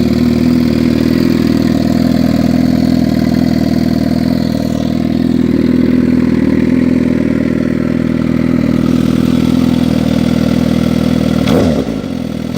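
Suzuki GSX-R 750 SRAD inline-four idling steadily through an SC Project slip-on exhaust, then a quick throttle blip about a second before the end, the pitch rising and falling back.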